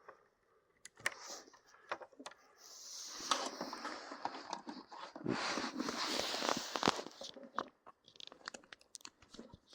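Handling noises: a few sharp clicks, then several seconds of dense rustling and scraping with clicks in the middle, tailing off into scattered clicks. No inverter warning beep sounds.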